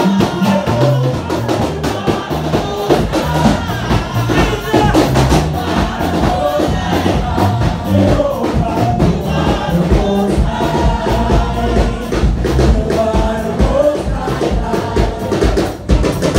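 Live band music played loud through PA speakers: a steady drum beat and bass with singing over it.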